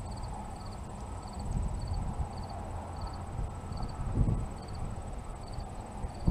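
Wind buffeting the microphone in an uneven low rumble that swells in gusts, with a faint high insect chirp repeating in short pulses about every two-thirds of a second.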